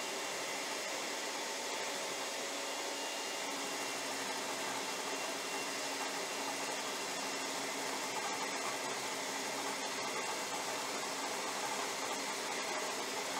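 Electric stand mixer running steadily, a continuous motor whir as it beats the cream mixture in its steel bowl.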